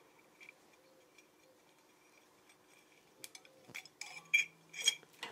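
Scooter engine cylinder clinking lightly against its steel studs and piston as it is worked off by hand. A quiet first half, then several short metallic clinks in the last two seconds.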